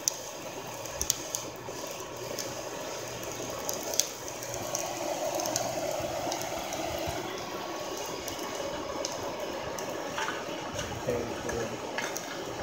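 Hair dryer blowing air into a bucket charcoal furnace, a steady rushing blast with the fire, and a few light clicks and knocks of charcoal and metal tools.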